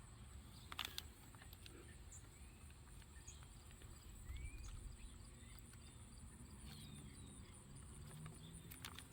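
Near silence with a low hum, broken by a faint click about a second in and a sharper click near the end, like small parts being handled.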